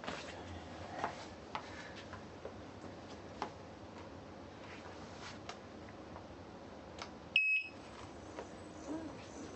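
Scattered light clicks and knocks from parts being handled, then about seven seconds in a single short, high-pitched electronic beep, the loudest sound here.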